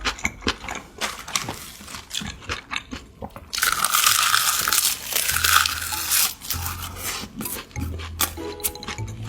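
Close-miked eating sounds: crunching and chewing, with many small sharp clicks and a louder, noisier crunching stretch of about two and a half seconds in the middle.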